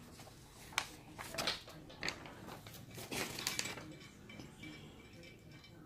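Small parts and hose fittings of a plastic portable shampoo bowl being handled and fitted together: scattered light clicks and knocks, several in the first four seconds, then quieter handling.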